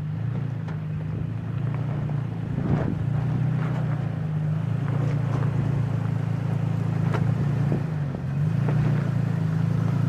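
A 2016 Toyota Tacoma's engine drones steadily at low revs as the truck crawls over a rough, rocky off-road trail. Scattered knocks and clunks come through as it rolls over rocks.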